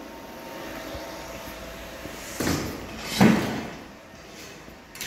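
Two knocks about a second apart, the second louder with a short ring, over a faint steady hum.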